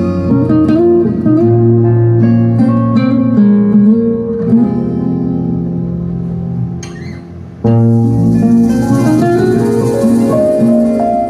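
Instrumental break of a ballad with no vocals, led by plucked guitar notes. The notes fade away about two thirds of the way through, then a fuller passage with held chords and a steady hiss on top comes in suddenly.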